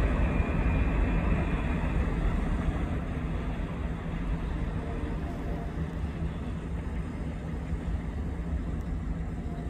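Rumble of a freight train's autorack cars rolling on the rails, slowly fading as the end of the train moves away. A faint thin high tone rides over it for the first two seconds.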